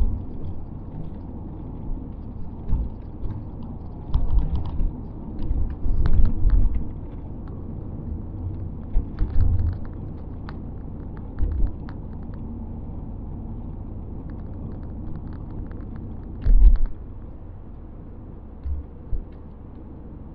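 Low rumble of road and engine noise inside a moving 2001 Ford Fairmont AU, broken by irregular low thumps and light clicks and rattles, the loudest thump about three-quarters of the way through.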